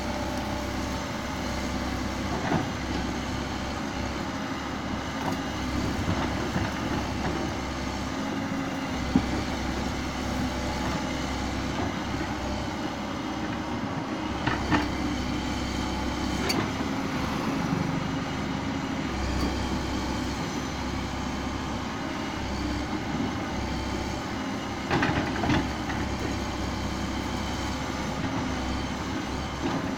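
Komatsu PC130 hydraulic excavator's diesel engine running steadily while the boom and arm move, with a few short sharp knocks.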